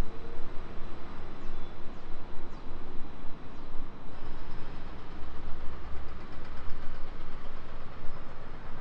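Danhai light rail tram running past, a low rumble that is strongest about halfway through, over steady street noise.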